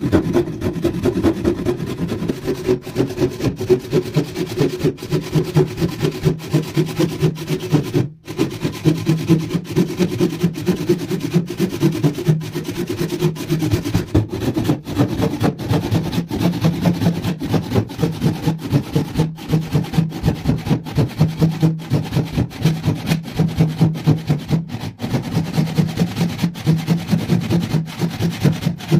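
Steel handsaw ripping lengthwise down through a thick block of hardwood, in steady rhythmic back-and-forth strokes, with a brief break about eight seconds in.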